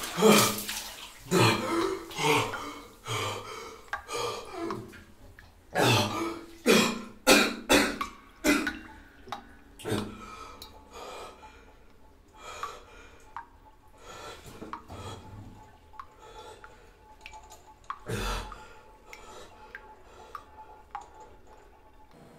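A run of short throaty mouth sounds, like gurgles, coughs and burps, coming thick for about ten seconds and then fainter and more scattered, with a little dripping water.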